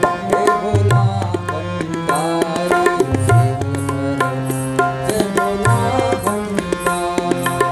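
Harmonium playing a bhajan melody with tabla accompaniment: quick, sharp strokes on the dayan and deep bass strokes on the bayan that bend in pitch.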